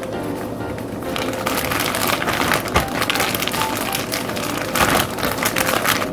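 Plastic zip-top bag crinkling and rustling as hands squeeze and shake it to mix sliced cucumbers with a soy sauce and vinegar pickling liquid and bonito flakes. The crinkling starts about a second in and is louder and denser in the middle.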